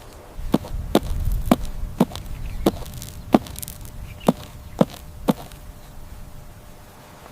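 A series of sharp knocks, about two a second, stopping a little after five seconds in, over a low rumble.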